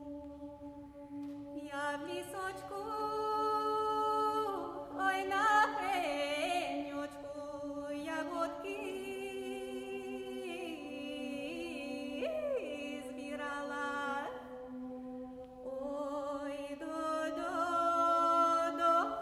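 Women's vocal ensemble singing a Ukrainian traditional folk song a cappella. A low drone is held steadily underneath, stepping down a little about halfway through, while the voices above carry the melody with sliding ornaments.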